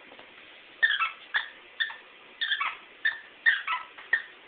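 Squeaky plush dog toy squeaking under the small dog's bites: about eight short, high squeaks in quick succession, each falling in pitch.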